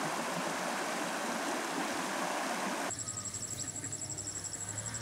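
Water rushing over the stones of a shallow river riffle, cut off abruptly about three seconds in; a fast, high-pitched pulsing chirp follows over a quieter outdoor background.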